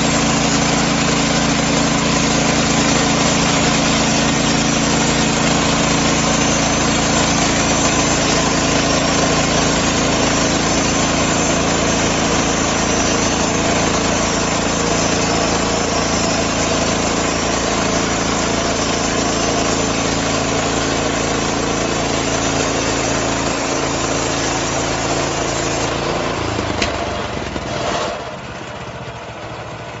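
Gasoline engine of a portable band sawmill running steadily at speed while the band blade cuts along a log. Near the end the engine drops back and the sound falls to a quieter run.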